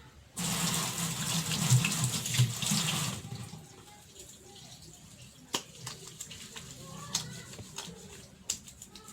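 Water running from a tap into a sink for about three seconds, starting suddenly and then dying away. A few faint clicks and knocks follow.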